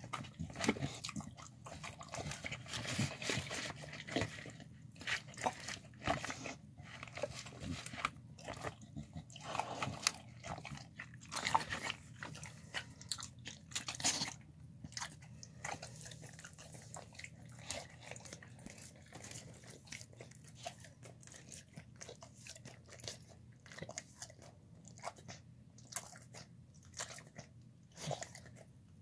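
Dogs eating a wet slop of chicken, rice, fruit, vegetables and lentils from a plastic bowl, with irregular wet chewing and smacking throughout.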